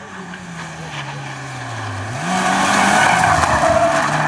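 Rally car engine falling in revs as it slows into a corner, then rising sharply again about two seconds in as the power goes back on. From that point loud tyre skidding and scrabbling on a dusty surface covers the engine as the car slides through the bend.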